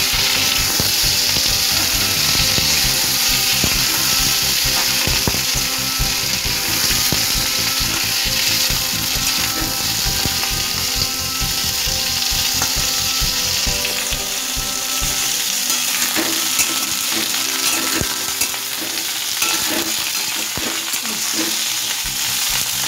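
Pointed gourd (parwal) pieces sizzling steadily as they fry in hot mustard oil with cumin seeds and a bay leaf. A metal spatula scrapes and clicks against the pan as the pieces are stirred and spread out. The sizzle eases slightly in the second half.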